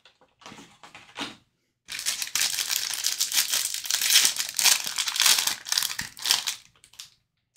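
Purple foil wrapper of an Upper Deck Stature hockey card pack being torn open and crumpled by hand: a few short rustles, a brief pause, then about five seconds of continuous crinkling and tearing of the foil.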